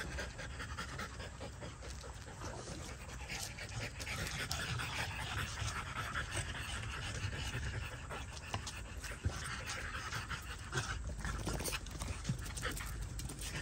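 A dog panting steadily close by.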